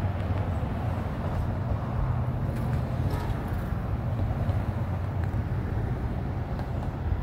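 Steady low rumble of a moving vehicle, with no distinct events.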